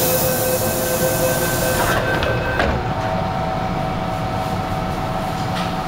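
MTR M-Train heard from inside the car at a station stop. A loud hiss lasts about the first two seconds over a steady electrical whine, then comes a knock about two and a half seconds in, after which the whine holds at a different pitch.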